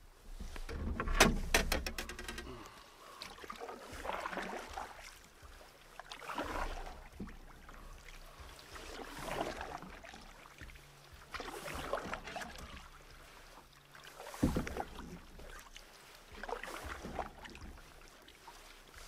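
Canoe paddle strokes pulling through the water, a swish about every two and a half seconds, with a cluster of sharp knocks about a second in.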